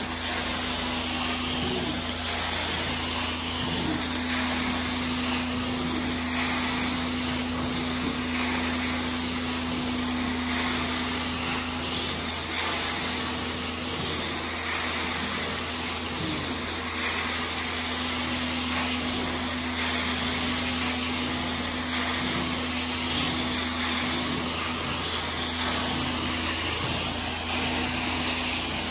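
Carpet extractor cleaning wand running: steady vacuum suction noise with the hiss of its hot-water spray, over a constant low hum, as the wand is worked across carpet tiles.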